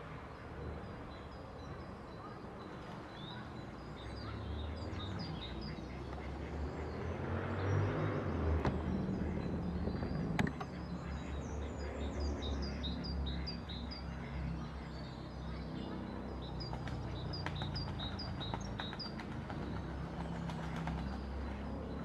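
Mallard drakes splashing on the water as they chase and scuffle, the splashing swelling about a third of the way in. Over it a small songbird sings phrases of quick high chirps several times, with a steady low rumble underneath and one sharp click near the middle.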